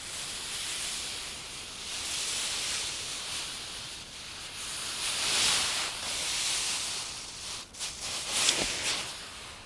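Hot forged steel rod hissing and steaming as it is quenched in snow. The hiss swells about halfway through and again near the end.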